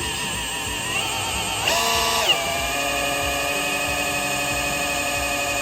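Electric drill spinning the oil pump of a rebuilt Crusader 454 marine big-block through a priming tool to prime the oiling system before first start. It runs as a steady whine that drops in pitch a little past two seconds in and then holds steady.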